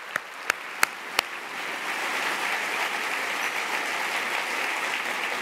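Large seated audience applauding: a few separate loud claps at first, swelling within about two seconds into full, steady applause.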